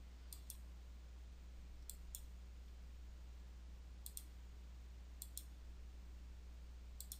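Computer mouse button clicking faintly: five pairs of quick clicks spread through, over a steady low hum.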